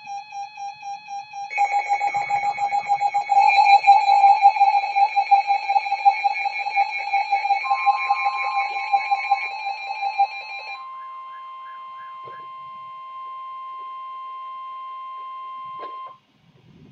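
Music with a fast pulsing beat, joined about eight seconds in by a steady single-pitched alert tone. The music stops about three seconds later and the tone holds alone until it cuts off sharply near the end. The tone is the long warning alarm tone that comes before a weather warning is read out.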